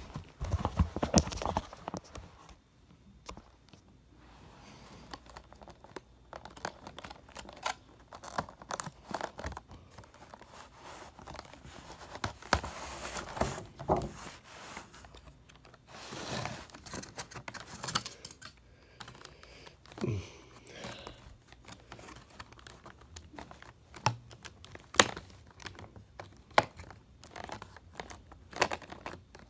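Clear plastic packaging being handled and opened: irregular crinkling, rustling and clicking of the plastic, with a few sharp louder clicks near the end.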